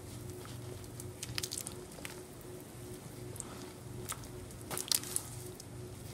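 Spoon stirring thick cheese soup in a pot: soft squelches and a few light clicks, over a steady low hum.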